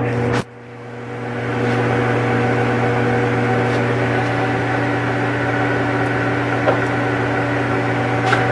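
Jet 16" x 40" engine lathe running, a steady motor and gearbox hum. A sharp click about half a second in, and a lighter click near seven seconds, as its levers are worked.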